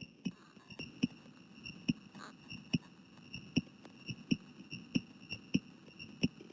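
Stethoscope recording of a human heartbeat: paired lub-dub thumps repeating at about 75 beats a minute, with a faint steady high whine behind them.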